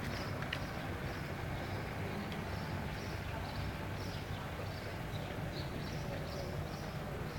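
Outdoor ambience picked up on a phone microphone: a steady low rumble with a faint high chirp repeating about three times a second.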